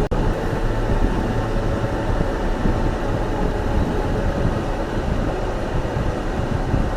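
Car driving, with a steady rumble of tyre and engine noise.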